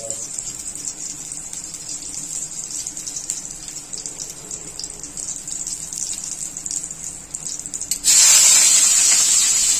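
Hot oil with a garlic clove gently sizzling in an iron kadai, then, about eight seconds in, sliced onions are dropped in and the sizzle jumps suddenly loud and carries on.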